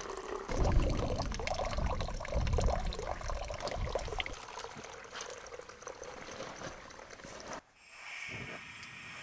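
Water being poured from above into a gravity water filter and trickling through, loudest in the first few seconds and tapering off before it cuts off abruptly near the end.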